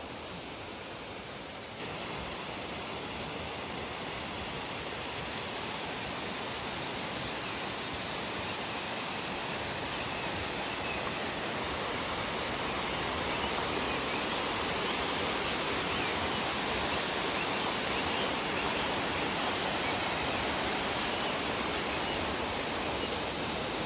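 Steady rushing noise of a waterfall's falling water, stepping up a little louder about two seconds in.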